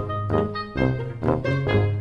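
Upbeat, jazzy background music with a bass line that steps to a new note about every half second.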